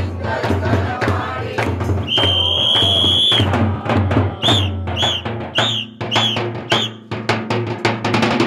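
Christmas carol group's drums beating a fast, even rhythm over a low steady drone, with a whistle blown: one long blast about two seconds in, then five short blasts.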